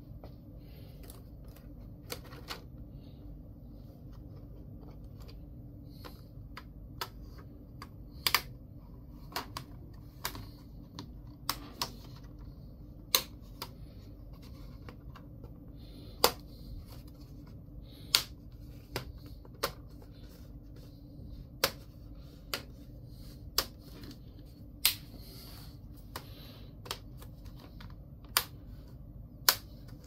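Sharp, irregular clicks and taps, about one every second or two, as laptop parts and small tools are handled, over a steady low hum.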